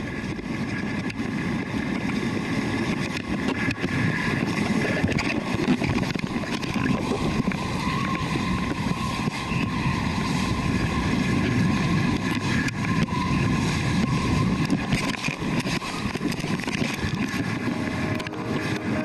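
Kiteboard planing fast across choppy sea: a steady rushing hiss of water and spray along the board, mixed with wind on the microphone.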